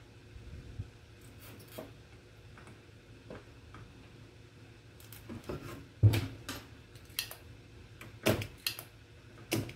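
Sporadic clicks and knocks of hand tools against a TV power-supply circuit board as two glued-down electrolytic capacitors are desoldered and worked loose. There is a sharp knock about six seconds in and a cluster of clinks near the end.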